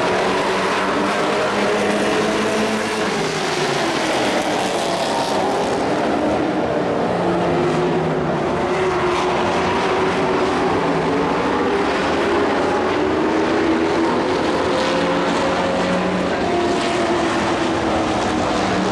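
Dirt-track race trucks' engines running hard around the oval. Several engine notes overlap, each rising and falling in pitch as the trucks accelerate down the straights and back off for the turns.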